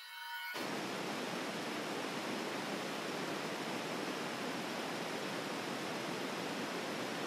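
Steady hiss of blank-tape static, cutting in abruptly about half a second in as a tonal music drone stops.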